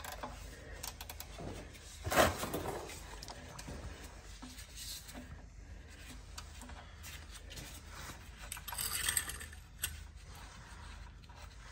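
Faint clicks and rattles of a ratchet and gloved hands working a 16 mm oil drain plug out of a car's oil pan, with one louder knock about two seconds in.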